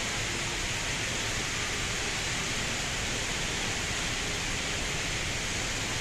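The Rain Vortex, a tall indoor waterfall, giving a steady, even rushing hiss of falling water.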